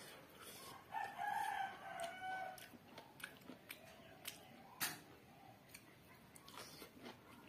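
A rooster crowing once: one call of nearly two seconds, starting about a second in and dropping in pitch at the end. Scattered sharp wet clicks and smacks come from someone eating with their fingers, the loudest a little before five seconds in.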